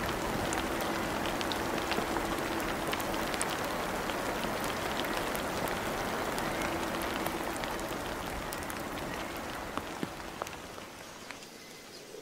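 Heavy monsoon rain falling on rainforest foliage: a steady hiss dotted with many individual drop hits on leaves, easing off over the last couple of seconds.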